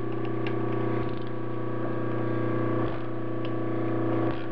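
Ratcheting wrench turning a high-speed steel 3/4-28 tap into a stainless steel blank held in a lathe chuck: the wrench's pawl clicks on the back-swings and the tap cuts and creaks in strokes. A steady machine hum runs underneath.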